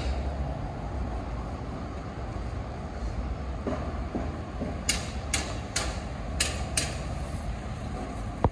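A run of five scuffing footsteps on a gritty concrete roof slab, about two a second, beginning about five seconds in, over a steady low rumble.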